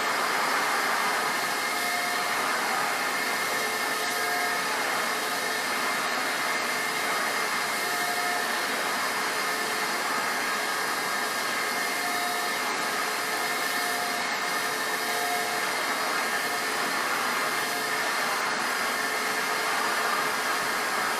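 1956 Electrolux Model E Automatic canister vacuum cleaner running steadily while vacuuming: a rush of air with a steady motor whine.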